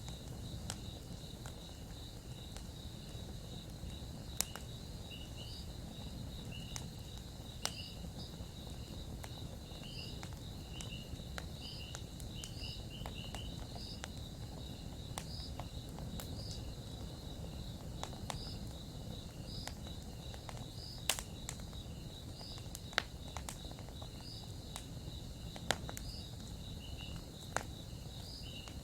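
Campfire crackling, with scattered sharp pops at irregular intervals, over steady high-pitched insect chirping.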